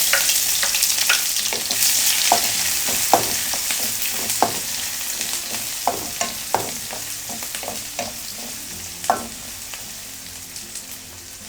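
Chopped onion frying in hot oil with cumin seeds, dried chilies and bay leaves: a loud sizzle that slowly dies down, with scattered clicks and scrapes of a utensil stirring in the pan.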